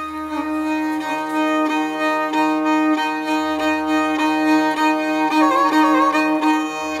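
Background music led by a violin playing a melody with vibrato over a steady drone and a pulsing low bass.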